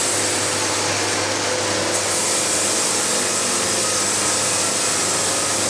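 Band sawmill sawing steadily through a narrow cant: the whir of the running mill and the 1.5-inch, .055, 7-degree band cutting wood, even throughout. The band is cutting smoothly and not jumping.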